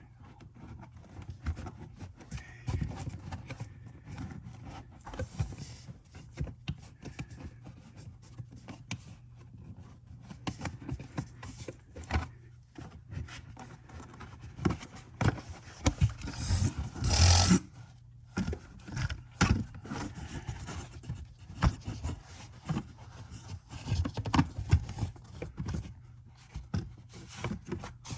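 Hand-tool and parts-handling noises from reassembling a car seat and battery area: scattered clicks, knocks and scrapes, with one louder scraping rush about two-thirds of the way through, over a steady low hum.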